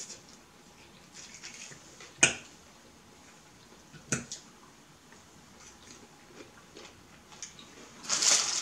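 A fork clicking against a plate a few times while eating, the sharpest click about two seconds in. Near the end, a plastic bag rustles.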